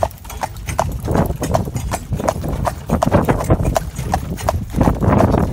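Hooves of a Gelderland horse in harness clip-clopping at a steady pace, about three strikes a second, over a low rumble that swells a few times.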